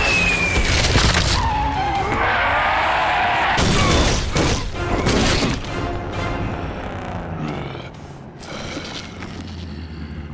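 Action-cartoon soundtrack: a music score under sound effects of a missile strike, with a rocket whoosh, explosions and heavy impacts in the first half. It settles to quieter music after about eight seconds.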